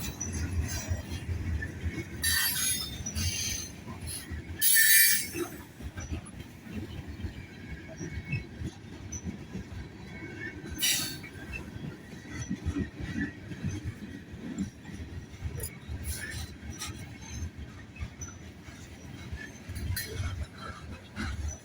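Union Pacific train rolling with a steady low rumble, broken by a few short high screeches of wheels or brakes. The loudest comes about five seconds in.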